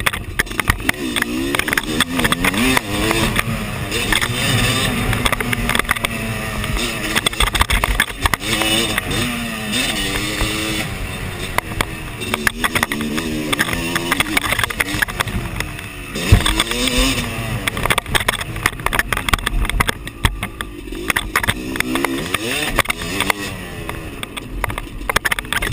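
Dirt bike engine heard from the bike itself, revving up and down over and over as the rider works the throttle and gears around a motocross track, with frequent sharp knocks and rattles from the bike over rough ground. About two-thirds of the way through there is one loud thud, and the engine drops and then climbs again.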